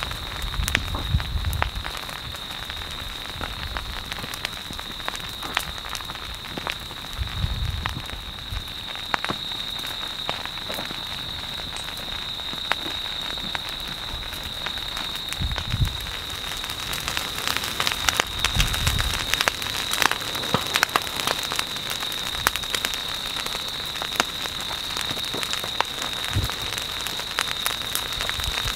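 Ferns and brush set alight by an advancing lava flow, burning with a dense crackling and popping like rain that gets busier in the second half. A few low thuds are heard, and a steady high-pitched tone runs underneath.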